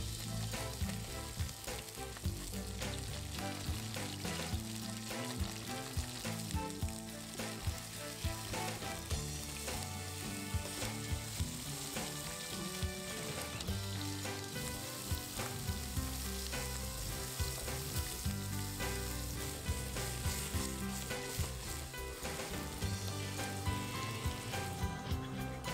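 Tongue sole fillets frying with sliced garlic in hot oil in a pan: a steady sizzle with frequent sharp crackles and spits throughout.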